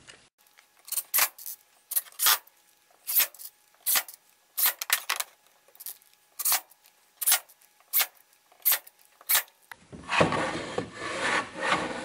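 Irregular sharp clicks and knocks, about fifteen spread over ten seconds, from screws and pine strips being handled on a workbench; about ten seconds in, a denser stretch of clatter and rubbing as the wooden boards are shifted.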